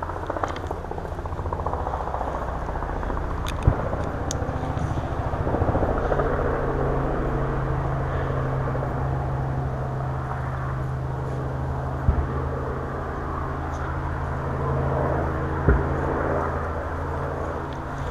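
Helicopter passing over: a steady low drone made of several evenly spaced low tones, growing stronger about five seconds in. A few sharp knocks stand out above it, about four, twelve and sixteen seconds in.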